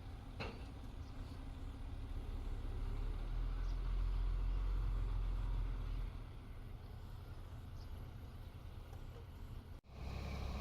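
Diesel engine of heavy earthmoving equipment running, its low rumble swelling a few seconds in and easing off again, with a short knock near the start. The sound breaks off abruptly for an instant near the end, then resumes.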